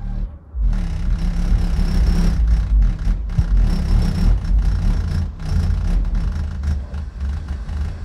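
Music with heavy bass playing loud through two brand-new, not yet broken-in 12-inch Seismic Audio subwoofers in a ported box, driven at 1000 watts each by a DC Audio 2K amplifier. The bass comes in less than a second in, after a brief gap, and stays loud.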